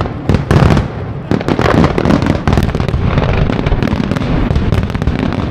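Fireworks going off in quick succession: a dense, unbroken run of bangs and crackles.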